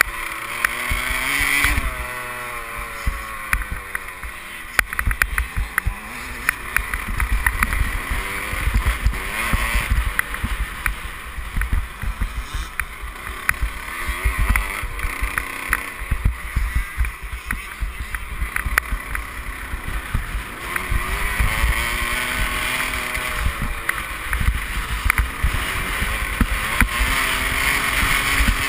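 Motocross bike engine heard from a helmet camera, revving up and falling back again and again as it rides a rough dirt track. Wind buffets the microphone, with frequent short knocks from the bumps.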